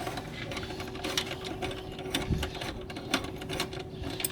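Socket ratchet clicking in quick runs as a fastener is worked loose, with a steady faint hum underneath.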